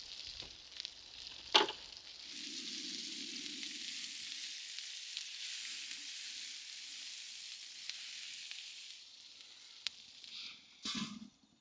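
Food frying on a cast iron scuttle griddle with a steady sizzle. There is one sharp clank about a second and a half in, and a couple of knocks near the end.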